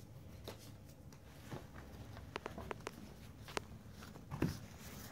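Pokémon trading cards handled and flipped through by hand: faint scattered clicks as the cards slide against each other, with a louder tap near the end.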